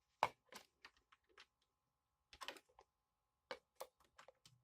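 Small, sharp plastic clicks and taps at irregular intervals, the loudest about a quarter of a second in, as the Mi Band tracker is fitted into its charging cable to charge.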